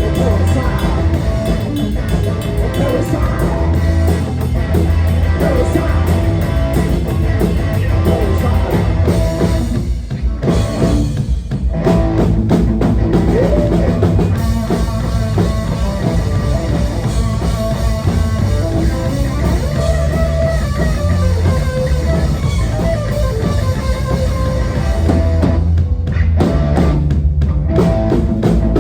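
Live rock band playing an instrumental passage: distorted electric guitars, bass guitar and a drum kit. The sound thins out briefly twice, about ten seconds in and again near the end.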